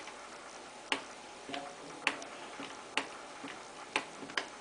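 Sharp plastic clicks from the controls of a Beko WM5140 washing machine, about one a second, five in all, the last two close together near the end.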